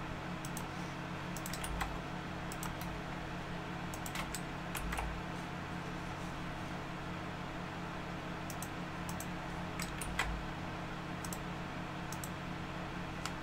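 Computer keyboard and mouse being used: scattered key presses and clicks in small clusters, over a steady low hum.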